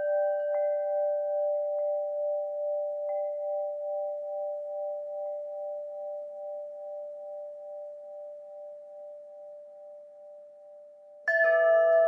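Wind chimes: low chime tones ringing on and slowly dying away with a wavering beat, with a few faint light strikes along the way. A fresh cluster of louder strikes comes in near the end.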